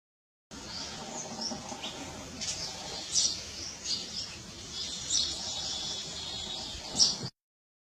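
Small birds chirping, many short high calls over a steady background hiss. The sound starts about half a second in and cuts off abruptly near the end.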